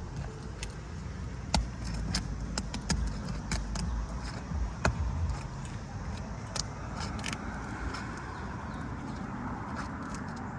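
Flat steel shingle-prying tool working under asphalt shingles to break their adhesive seal strip: irregular sharp clicks and scrapes, densest in the first two thirds, over a low rumble that fades about halfway through.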